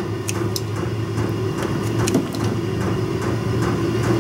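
Steady low hum of a running shop heater, with a few light clicks over it.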